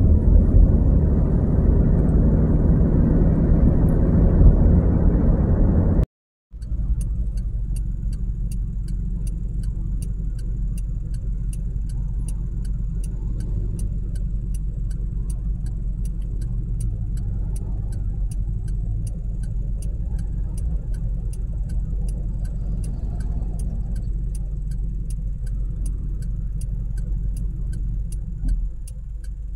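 Car cabin sound: road and engine rumble while driving, cut off abruptly about six seconds in. Then, with the car waiting at an intersection, a lower idle and traffic rumble runs under an even, rapid ticking of the turn-signal indicator.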